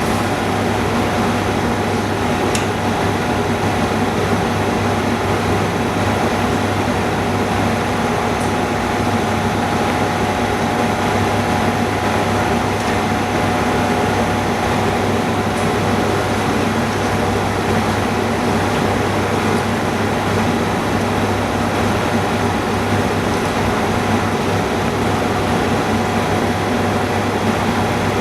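Steady mechanical hum of running refurbishing equipment, a constant low drone with a higher steady tone above it.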